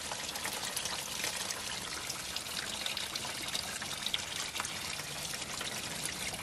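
Engine coolant spraying and pouring steadily out of the opened radiator drain plug of a 1989 Dodge D100, splashing onto plastic sheeting below: a steady hiss with fine crackling throughout.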